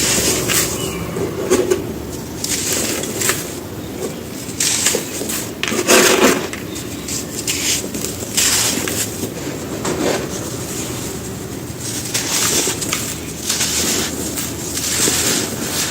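Dry sand-cement slabs and cones being crumbled, a run of irregular gritty crunches, the loudest about six seconds in.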